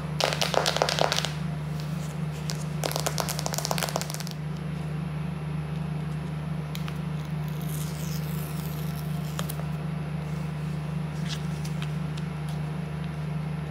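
Fingers and nails scraping and rubbing on a sealed paperboard iPhone 16 Pro Max box as it is worked at to open it: two scraping bouts in the first four seconds, then a few faint ticks, over a steady low hum.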